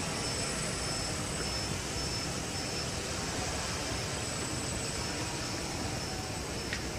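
Steady whirring hum of several large multirotor drones (hexacopters and octocopters) flying overhead, their propellers and motors blending into one continuous noise. A thin high tone pulses through the first few seconds.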